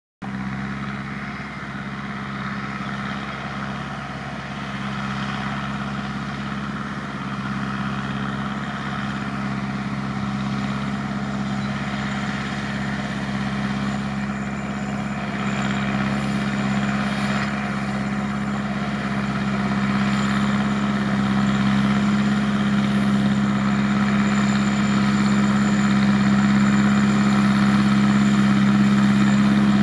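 Massey Ferguson tractor's diesel engine running at a steady speed while pulling a working round baler through a hayfield, a constant low hum that grows slowly louder as the tractor comes closer.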